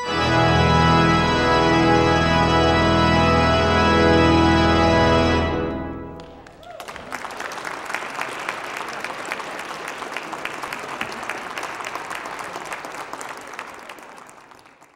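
Pipe organ holding a loud final chord with deep bass, which cuts off about five and a half seconds in and rings on for a moment. Audience applause follows and fades out near the end.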